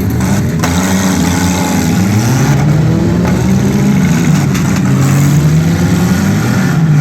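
Several demolition derby cars' engines running and revving, their pitch rising and falling over one another.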